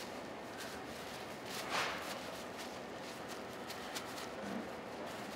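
Cloth rustling and rubbing over a wet steel electrical box as it is dried off, with small handling clicks and one louder rustle about two seconds in.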